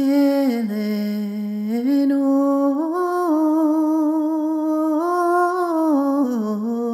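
A lone woman's voice singing unaccompanied in sean-nós style: one long, ornamented melodic line on held notes. It starts right after a breath, steps down, climbs back up and holds with small turns, then dips and rises again near the end.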